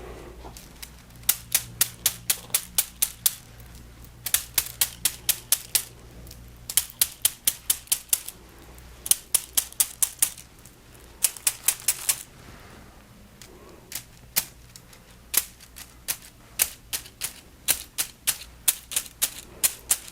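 Small massage rods clicking and tapping in quick runs of sharp ticks, about five a second, in bursts of one to two seconds with short pauses between.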